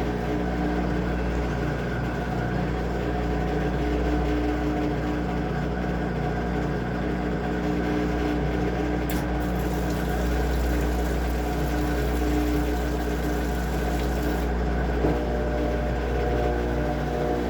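Washing machine running, a steady low motor hum with a few constant tones above it and a small click about fifteen seconds in.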